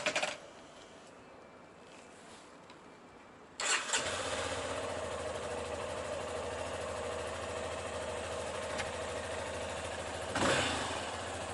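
A motorcycle engine is started a bit over three seconds in, catches at once and settles into a steady idle. There is a brief clatter at the very start and a short swell near the end.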